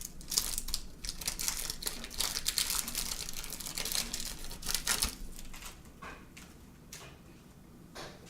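Baseball card pack wrappers crinkling and cards being handled and flipped through quickly, a dense run of crackly rustles for about the first five seconds. It then turns quieter, with a single sharp click near the end.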